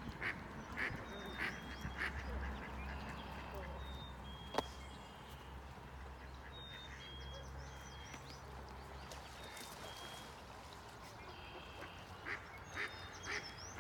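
Ducks quacking on a pond: a run of quacks at the start and another near the end, with thin, high whistled calls in between, one sharp click about four and a half seconds in, and a low steady rumble underneath.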